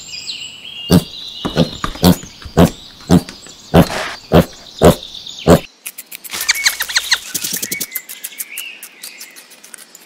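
Birds chirping over short, sharp knocks that come about twice a second. Then, about six seconds in, a rabbit gnawing an ear of corn makes a fast run of crisp crunching clicks.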